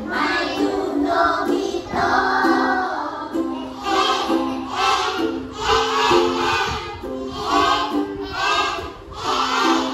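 A woman singing a simple children's song while strumming a ukulele, with a group of young children singing along.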